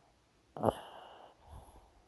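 A sleeping dog snoring: one sudden, loud breath about half a second in that fades out over most of a second, followed by a faint, low breath.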